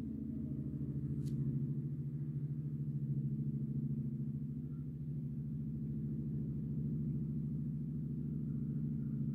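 A low, steady droning tone with a fast wavering pulse.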